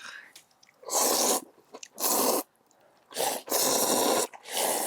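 Buckwheat noodles (makguksu) being slurped, four loud hissing slurps, the third the longest.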